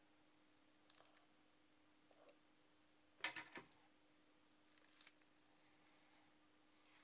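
Faint crinkling of a small plastic watch-parts bag as it is slit open and a tissue-wrapped replacement watch glass is pulled out with tweezers. Four short rustles, the loudest about three seconds in.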